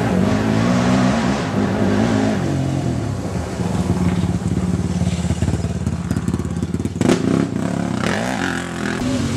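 Small ATV (quad) engine running under throttle, its pitch rising and falling as the rider works the throttle, then holding steadier. A sharp knock comes about seven seconds in.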